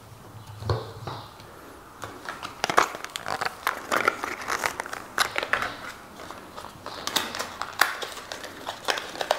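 A Kodak Tri-X cardboard film box being torn open by hand: crinkling and tearing card with many quick sharp clicks for several seconds, after a single knock about a second in.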